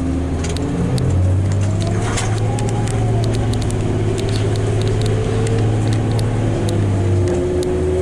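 Diesel drivetrain of a 2001 New Flyer D40LF transit bus heard from inside the cabin while driving: a steady low hum with whining tones that rise and fall, and frequent clicks and rattles from the bus body.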